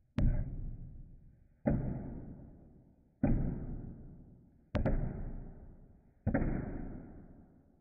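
Five deep thuds, evenly about one and a half seconds apart, each ringing out and fading over about a second, sounding slowed down. A sharp click sits on the first and the fourth.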